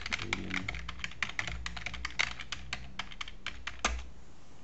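Fast typing on a computer keyboard: a quick run of key clicks that ends with one heavier keystroke about four seconds in.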